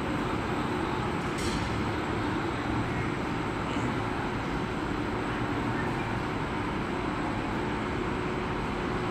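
Steady drone of an abrasive nylon filament extrusion line running in a factory hall, an even noise with a faint hum in it. A brief faint tick about one and a half seconds in.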